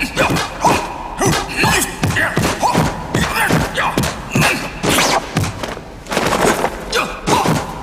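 Kung fu film fight sound effects: a fast string of sharp punch and kick hits, about two a second, with thuds between them.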